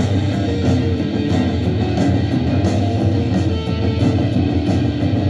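Rock band playing: electric guitar over bass and drums, with cymbal strokes on a steady beat about every two-thirds of a second.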